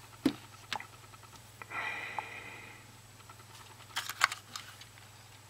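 Small plastic clicks and taps as USB plugs, cable and peripherals are handled and connected to the phone, a few just after the start and a cluster about four seconds in. A short breathy sound about two seconds in, over a steady low hum.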